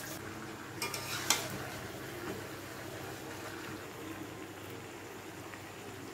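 Spiced masala bubbling and sizzling in a kadai as fried potatoes are added a few at a time, with two sharp clicks about a second in.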